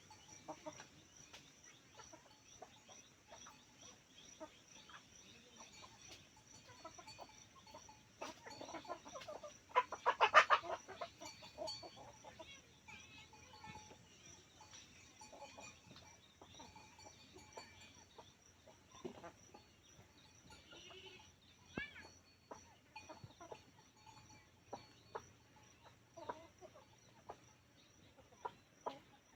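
Desi chickens clucking on and off, with one loud run of rapid clucks about ten seconds in. A faint steady high whine runs underneath.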